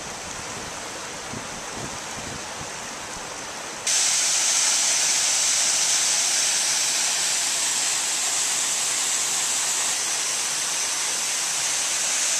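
River rapids rushing steadily; about four seconds in the sound switches abruptly to the louder, hissier rush of a waterfall, which carries on steadily.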